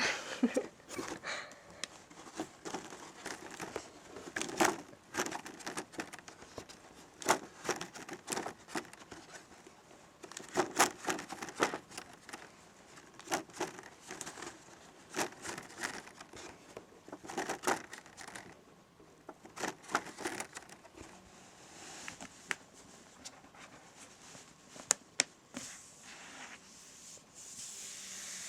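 A plastic document folder and its paper script pages being handled, crinkling with many irregular sharp crackles and taps. Near the end it eases into a softer rubbing hiss.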